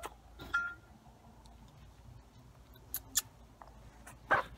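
Backyard hens close by: a soft chicken chirp about half a second in, scattered light taps and clicks, and a brief louder rustle near the end.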